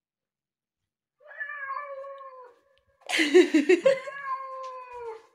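Recorded cat meows played through a Yandex smart speaker by its Alice assistant. A long drawn-out meow comes first, then about three seconds in a louder, harsher wavering yowl, then another long meow.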